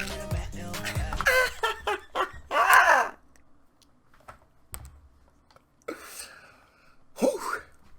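Music cuts out about a second in, then comes loud wordless vocalising: sliding shouts or screams, the loudest ending around the three-second mark. After a quieter stretch with a few faint clicks comes a breathy sound and one short gliding cry near the end.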